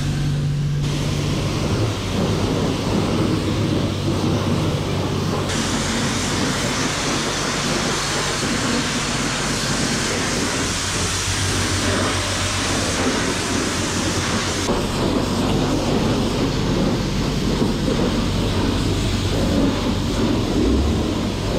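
Self-service car-wash pressure washer spraying a jet of water onto a motorcycle: a steady, loud hiss of spray over a low pump hum, its tone changing abruptly a few times.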